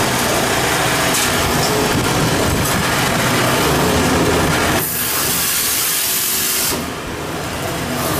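Toilet paper rewinding and band saw cutting line running, a loud steady machine noise with hiss. Nearly five seconds in the sound turns to a sharper, higher hiss for about two seconds, then eases slightly.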